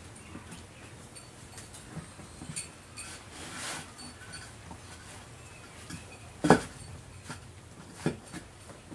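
Rubber inner tube being stuffed by hand into a small auto-rickshaw tyre: rubbing and rustling of rubber against rubber, with a sharp knock about six and a half seconds in and a smaller one about a second and a half later.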